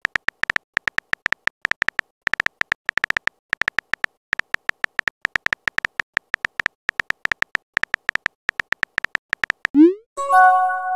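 Texting-app keyboard tick sounds: a rapid, irregular run of short high-pitched ticks, one per typed letter. Near the end comes a quick rising swoop and then a short chime: the app's message-sent sound.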